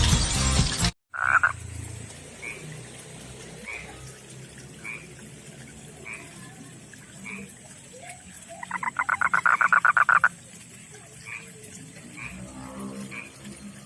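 Male frog's mating call: a loud, rapid pulsed trill lasting under two seconds, about two-thirds of the way through. Fainter short chirps repeat about once a second around it.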